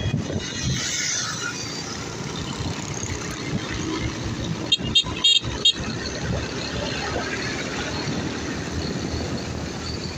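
Motorcycle under way in traffic: engine running, with road and wind noise on the microphone. A vehicle horn gives several quick toots about five seconds in.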